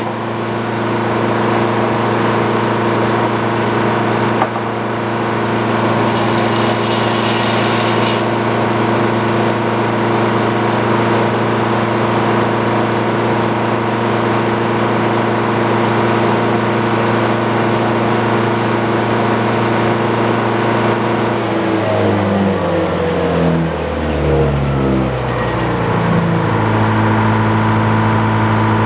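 An engine running steadily at one speed; near the end its pitch drops in steps, then it settles back to a steady run.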